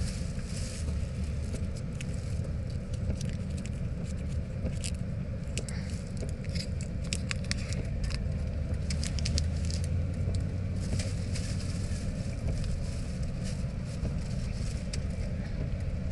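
Car driving, heard from inside the cabin: a steady low rumble of road noise with scattered sharp ticks and patter, thickest in the middle.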